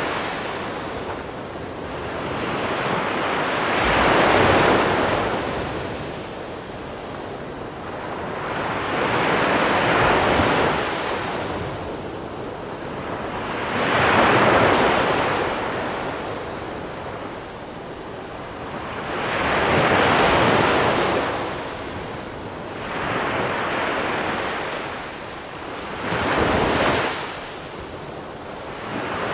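Sea waves breaking and washing over a shore of small pebbles, a rushing surge that swells and ebbs about every five seconds.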